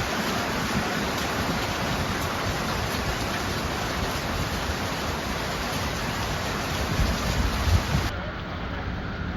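Heavy typhoon rain pouring down in a steady dense hiss, with low rumbling gusts of wind buffeting the microphone about seven seconds in. About eight seconds in the sound turns abruptly duller as its high end drops away.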